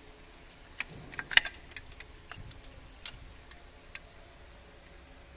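Irregular light clicks and taps of hands handling rubber hoses, wiring and plastic connectors around a car engine's water pump and thermostat housing, the sharpest cluster a little over a second in.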